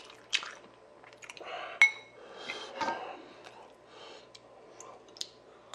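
Metal spoon clinking and scraping against a dish while scooping up food, with one sharp ringing clink about two seconds in.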